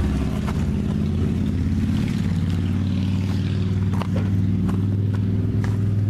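A car engine idling steadily, with a few light clicks and taps over it.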